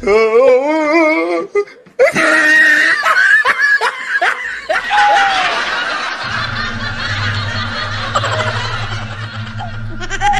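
Loud laughter: a warbling, rising cackle for the first second and a half, then, after a brief drop, a burst of laughter from about two seconds in. A low steady drone comes in about six seconds in.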